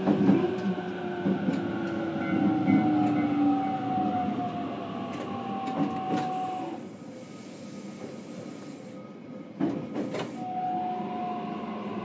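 Interior running sound of a JR Kyushu BEC819 series battery train with a Hitachi IGBT inverter. The inverter whine falls steadily in pitch as the train slows and cuts out about seven seconds in, leaving quieter running noise. A couple of sharp clicks come near ten seconds, and then the whine starts up again.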